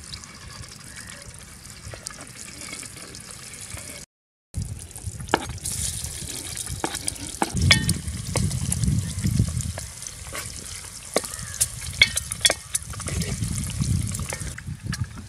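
A steel ladle stirring sliced bottle gourd in an aluminium pot over a wood fire, with scattered metal clinks and scrapes over a steady hiss from the simmering pot and fire. Before this there are quieter knife taps on a cutting board, and a brief silence about four seconds in.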